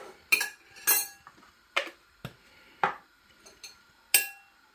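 Metal teaspoon clinking against a glass bowl while spooning out dry seasoning: five separate sharp clinks spread over about four seconds, the loudest near the end ringing briefly.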